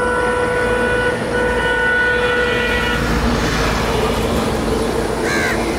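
A vehicle horn sounding one long, steady note for about three seconds, over a low rumble.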